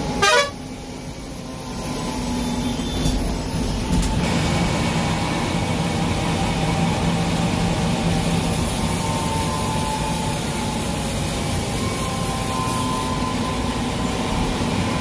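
Tourist bus engine running steadily, with tyre and road noise on the wet highway heard from inside the cabin. A short loud burst comes right at the start.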